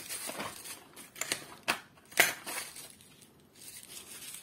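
Hands rummaging through parts in a workshop: scattered clicks, rustles and light knocks, the sharpest click a little after two seconds in.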